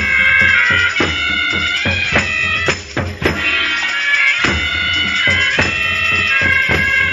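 Shrine oriental band playing: a nasal, reedy melody held over a steady beat of snare and bass drums.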